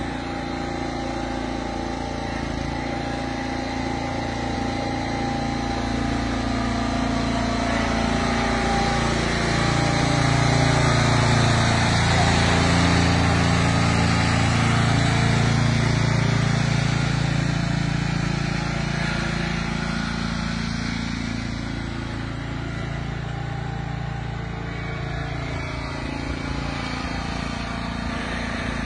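Riding lawn mower engine running steadily, getting louder as it passes close by around the middle and fading as it drives away.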